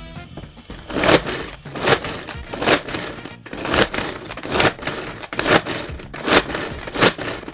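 Sedhoom manual pull-cord food chopper, its blades spun by repeated pulls of the cord, chopping ginger in the plastic bowl. There is a whirring rasp with each pull, about eight pulls at a little more than one a second.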